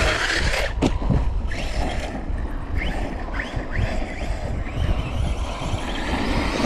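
Traxxas Sledge RC monster truck's brushless motor whining in several short rising bursts under throttle, with a sharp knock about a second in, over heavy wind rumble on the microphone.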